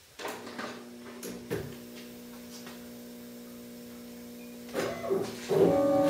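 Small benchtop CNC milling machine starting its run: the spindle motor whines steadily, a few seconds into the profiling pass. About five and a half seconds in the whine turns louder and a little higher.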